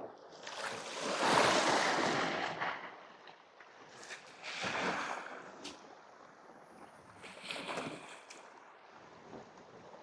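Sea waves washing against shore rocks: three surges of hiss that swell and fade, the first the loudest.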